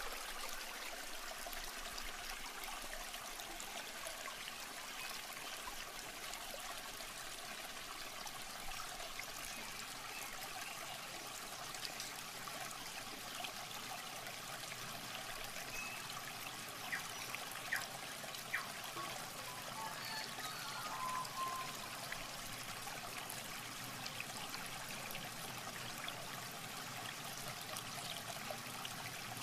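Shallow muddy water trickling and sloshing steadily as bare feet wade through a mud puddle and a plastic bucket is dipped in it. A few brief sharp sounds stand out a little past the middle.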